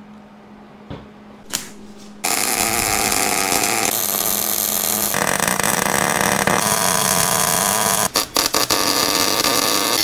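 Arc welding on steel plate: a steady, loud welding hiss that starts about two seconds in after a couple of clicks, and breaks off briefly several times near the end as the arc is stopped and restarted.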